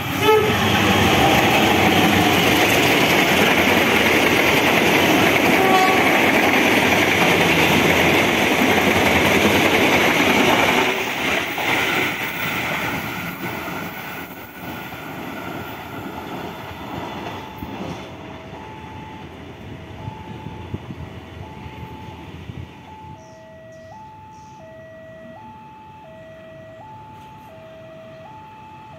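Diesel-hauled passenger train running through the station at speed, its wheels on the rails loud for about ten seconds before the sound fades away. In the second half, an electronic warning signal switches back and forth between a high and a low tone.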